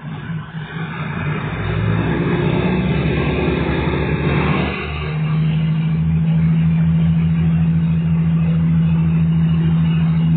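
Diesel railcar engine pulling the train away from a station: the engine note builds over the first couple of seconds, eases briefly about five seconds in, then holds a steady low drone with a fast even throb.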